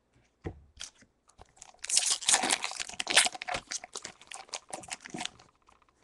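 Foil wrapper of a Pokémon Roaring Skies booster pack crinkling and tearing as it is ripped open, starting about two seconds in and dying away about three seconds later.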